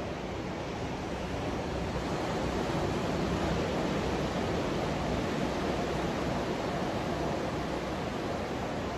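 Ocean surf breaking on a sandy beach, a continuous wash of waves that swells a little in the middle.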